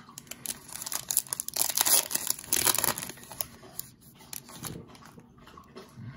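A trading card pack's wrapper being torn open and crinkled by hand: a burst of dense crackling from about half a second to three seconds in, then a few lighter rustles and clicks.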